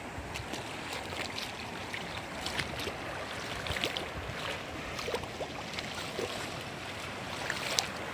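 Shallow stream running over stones: a steady rushing hiss with scattered small ticks.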